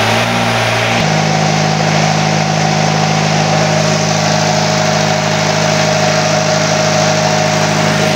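Isuzu Panther 2.3 four-cylinder diesel engine of a generator set running steadily at its governed speed, held there by an industrial governor on an inline Bosch injection pump. The tone shifts slightly about a second in, then stays even.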